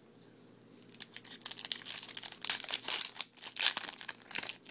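Plastic wrapper of a baseball card pack being torn open and crinkled. It comes in irregular crackling bursts, starting about a second in.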